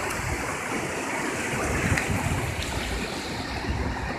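Shallow surf washing and foaming over a sandy beach, a steady rushing wash, with uneven low wind rumble on the microphone.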